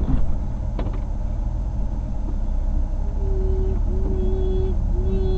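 Off-road vehicle driving along a forest trail: a steady low engine and drivetrain rumble. About three seconds in, a string of short, evenly held tones begins, each lasting under a second.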